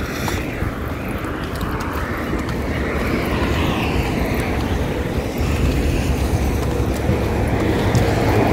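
Road traffic on a multi-lane highway: cars passing on the tarmac, with the sound of an approaching vehicle growing louder toward the end.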